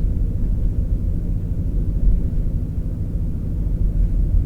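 Car driving, a steady low rumble of engine and tyre noise heard inside the cabin.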